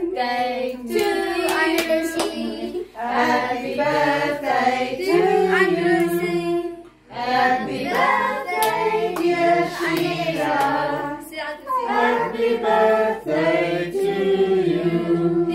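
A group of family voices singing a birthday song together around the lit candles, with some hand clapping.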